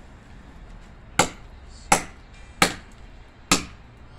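Small machete chopping a thin dry branch for firewood: sharp, separate chops, the first about a second in, then one roughly every three-quarters of a second.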